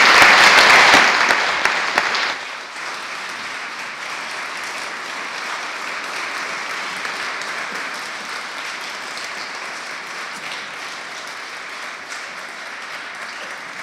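Audience applauding: loud for the first two seconds or so, then softer, steady clapping that carries on.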